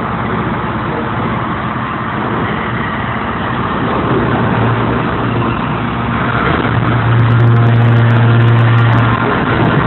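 Hydraulic open-die forging press and its hydraulic drive running under operation, a steady loud machine noise with a deep hum that swells about halfway through and is loudest between about seven and nine seconds in.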